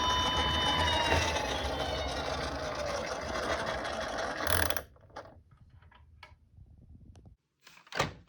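A toy emergency vehicle's siren holds one tone, then slides down in pitch as it winds down, over a mechanical whirring. The siren and the whirring cut off abruptly about five seconds in. A few faint light clicks follow, then a sharper click near the end.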